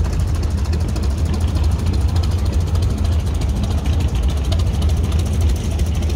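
Antique farm tractor engine running at slow parade speed as a steel-wheeled tractor drives past, a steady low rumble with an even, rapid beat.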